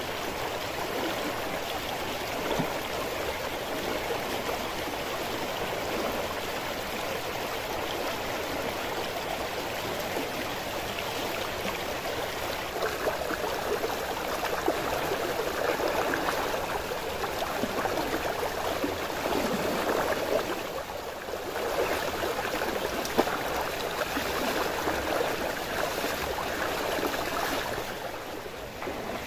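A fast-flowing stream rushing over rocks: a steady wash of water noise that grows louder about a dozen seconds in and dips briefly about two-thirds of the way through.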